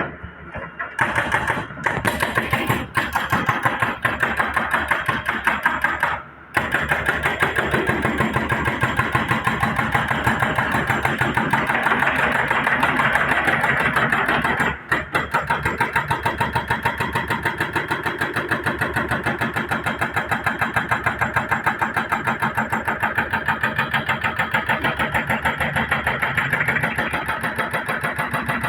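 Excavator diesel engine running steadily under work, with an even pulsing beat of about four a second. The sound drops out briefly twice.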